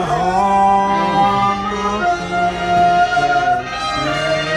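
Music with a voice singing long, steady held notes.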